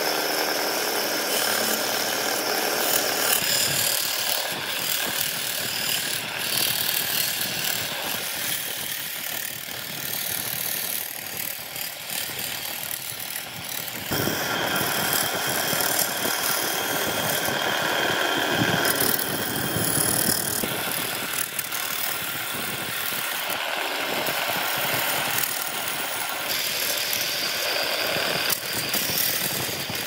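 Wood lathe spinning a burl wood and epoxy blank while a turning gouge cuts it: a continuous rough, rattling scrape of the tool over the motor's run, with shavings flying off. The cutting sound changes character about halfway through.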